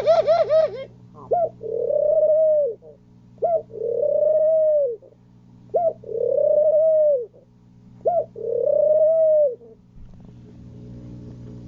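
Pigeon cooing: four coos about two seconds apart, each a short sharp note followed by a longer coo that rises and falls. A quick run of short wavering notes opens it, and a faint steady low hum runs underneath.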